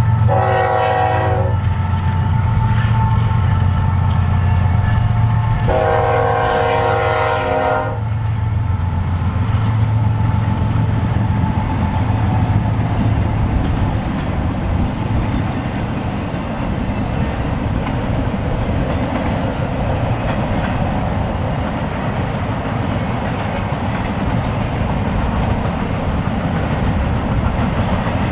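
Diesel freight locomotive's multi-chime air horn sounding a short blast, then a longer one about five seconds later, over the low running of the diesel engines as the locomotives pass. The end of the grade-crossing horn sequence. After that, the freight cars roll by with a steady rumble and clickety-clack of wheels on rail joints.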